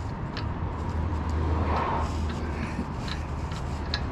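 A few light clicks of a thread-repair die being worked against the damaged threads of an axle end, over a steady low hum. The die is not catching.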